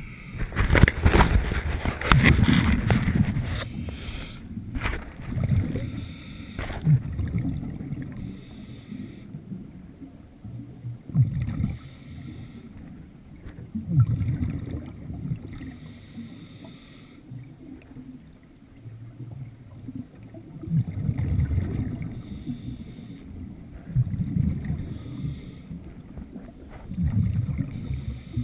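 Scuba diver's regulator breathing heard through an underwater camera housing: low, bubbly rushes of exhaled air every few seconds, loudest in the first few seconds.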